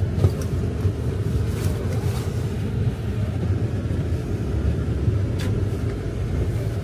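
Car cabin noise while driving: a steady low rumble of engine and tyres on the road.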